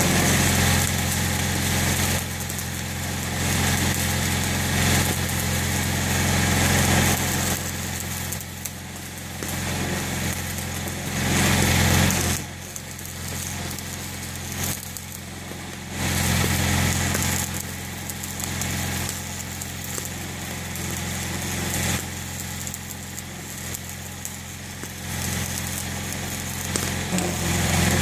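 Stick welding on steel: the electric arc crackles and sizzles in runs of a few seconds, with short breaks, over a steady low hum.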